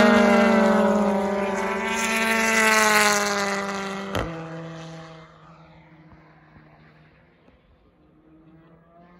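BTCC touring car's turbocharged engine going past at speed. Its pitch falls as it passes, then climbs again under acceleration, with a single sharp bang at about four seconds. The engine then fades into the distance, and another engine comes up faintly near the end.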